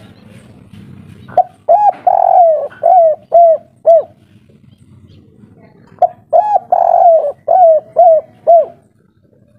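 Spotted dove cooing two phrases in its 'kuk 3' song: each opens with a couple of short notes, swells into one longer drawn-out coo, then ends in three quick clipped 'kuk' notes.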